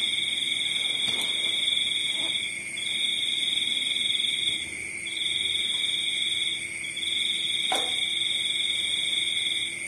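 Insects trilling: two steady high-pitched tones, the upper one in bouts of about two seconds with short breaks between them, and a couple of faint clinks.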